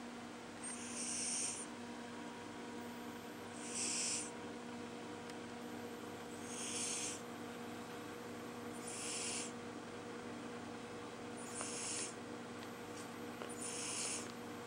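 A sleeping pet snoring in a slow, even rhythm: six short, hissing breaths, one about every two and a half seconds.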